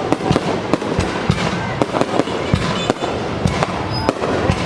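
Fireworks going off in rapid, irregular succession, several sharp bangs a second over a continuous noisy rumble.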